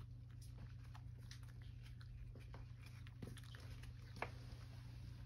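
A cat eating from a wooden tray: faint chewing and licking with scattered small clicks, the sharpest about four seconds in, over a steady low hum.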